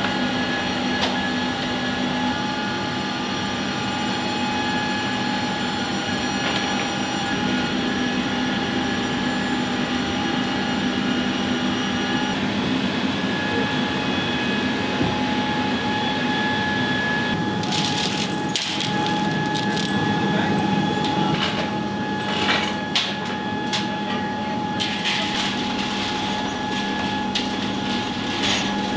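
Steady whine of aircraft machinery running inside a C-5 Galaxy's cargo hold, several held tones over a rumble. From a little past halfway, a run of sharp metallic clanks and knocks comes in, as tie-down chains are handled on the cargo floor.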